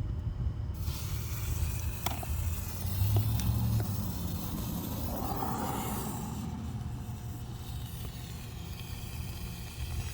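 A lit coloured smoke bomb hissing steadily as it burns, catching about a second in, over a low rumble of handling or wind on the phone's microphone.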